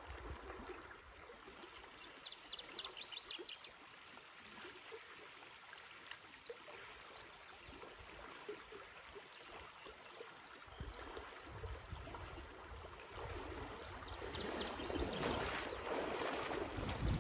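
Steady rush of a fast river current, with two brief runs of rapid high ticks, about two seconds in and again near the middle. Near the end the water grows louder with the splashing of legs wading through the current.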